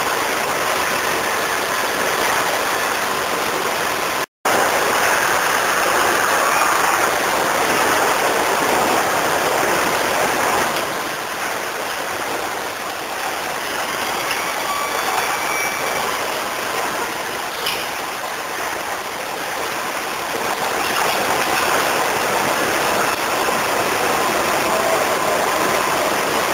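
Emmeti MT582 can depalletizer and can conveyors running on a canning line: a steady rushing machine noise. It cuts out for an instant about four seconds in.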